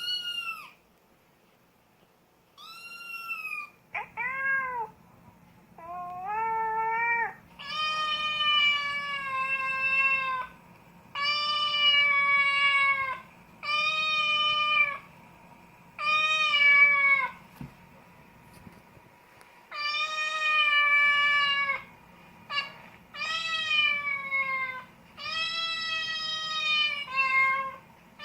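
Recorded cat meows played back: about a dozen drawn-out meows, each lasting one to two seconds, with short pauses between them.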